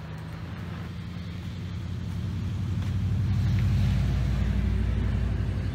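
Ford F-150 pickup's engine idling steadily, growing louder up to about the middle and then easing off slightly.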